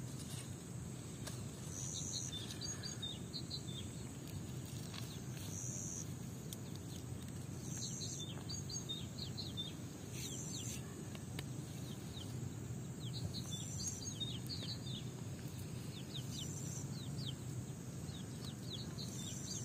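Outdoor garden ambience: small birds chirping in quick runs of short falling notes, with a short high note repeating every two to three seconds, over steady low background noise.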